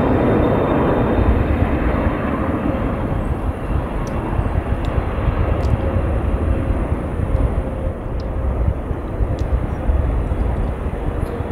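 Jet airliner engines: a steady, heavy rumble that slowly fades as the aircraft draws away.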